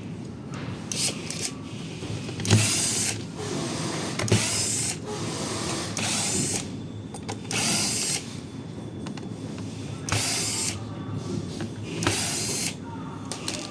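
A small motor running in short whirring bursts, about seven in all, each roughly half a second long and coming every one and a half to two seconds.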